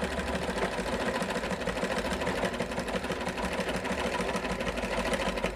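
Sewing machine running steadily, stitching a test seam on thin fabric with a fast, even clatter of needle strokes, then stopping near the end. The bobbin-case and upper-thread tensions have just been adjusted to cure the fabric's puckering.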